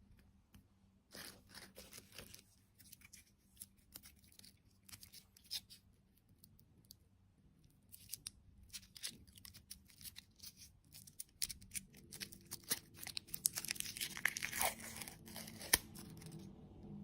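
Crinkly packaging being handled and torn open: rapid crackling and tearing in bursts, densest and loudest near the end before stopping suddenly.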